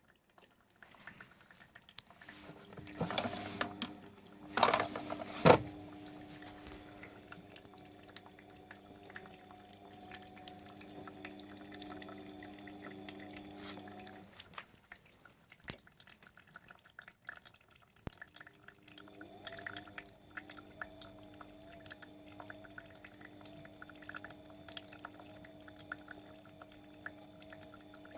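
Whirlpool AWO 9165 washing machine running a wash: a steady motor hum with water splashing and dripping inside, and a few loud noisy bursts in the first few seconds. The motor stops for about four seconds, then starts again.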